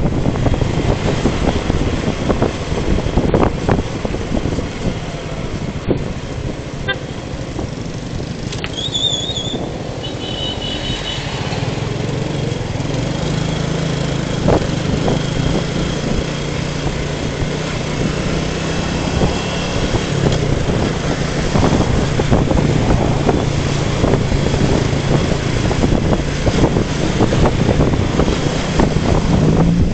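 Motorcycle riding along a road: wind rushing over the mounted camera and the engine's steady low hum. A short, high, wavering toot comes about nine seconds in.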